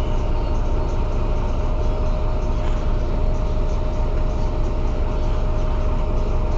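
Mercedes-Benz O 405 N city bus running steadily, its engine a continuous low rumble with a steady whine above it.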